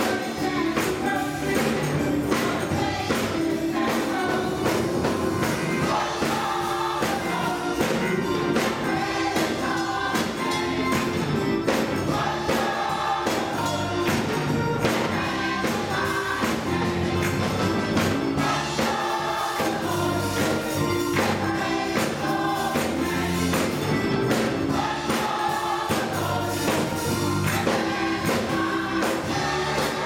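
Gospel choir singing an upbeat song with keyboard accompaniment and a steady beat of hand claps.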